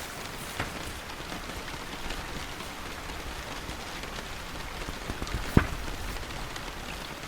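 Steady rain falling on a surface, with scattered louder drops and one sharp tap about five and a half seconds in.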